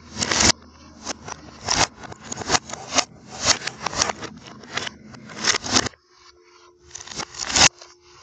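Rapid, irregular scraping and rustling, several bursts a second. It drops away about six seconds in and then comes back with a loud burst of scrapes near the end.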